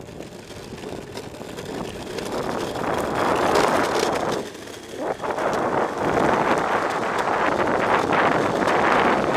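Wind buffeting the microphone, with road noise from the wheels, as an electric skateboard picks up speed. It grows louder over the first three seconds, dips briefly about four and a half seconds in, then stays loud.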